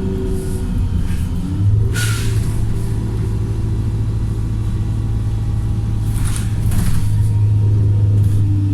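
Wright StreetLite single-deck bus's remapped diesel engine pulling hard at a steady pitch. Short, sharp hisses cut in about two seconds in and twice more around six to seven seconds.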